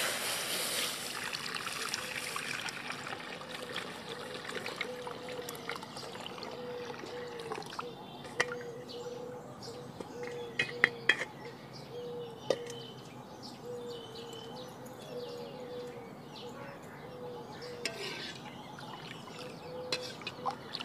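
Cow's milk poured from a metal pot through a sieve into a pan, a pouring splash that fades out over the first few seconds. After it come a few sharp clicks and knocks of metal utensils.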